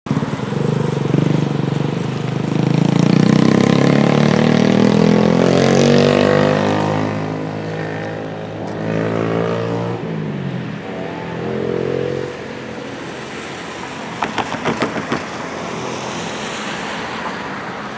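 A motorcycle rides past, its engine note rising as it nears and falling away as it goes, with tyre hiss from the wet road. Another vehicle passes a few seconds later, and a brief run of knocks comes about fourteen seconds in.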